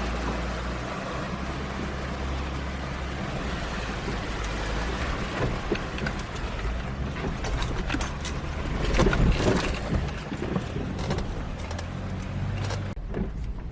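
Off-road 4x4 engine running at low speed while driving through a river crossing, with water washing around the vehicle over the first few seconds. Later come scattered clunks and rattles from the vehicle as it works over the rough, wet riverbed.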